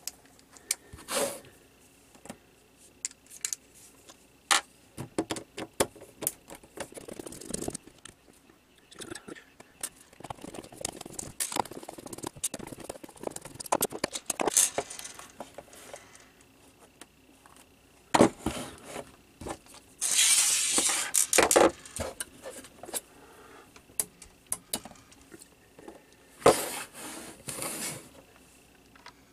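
Security Torx screws being taken out of an Xbox 360 power-supply brick's plastic case with a small screwdriver, and the case handled: scattered clicks, taps and short scrapes of tool, screws and plastic, with a louder rasping scrape lasting about two seconds roughly two-thirds through.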